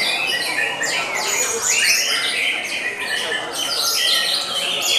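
White-rumped shamas singing together in a dense, overlapping chorus of fast whistled phrases, sweeps and chatters.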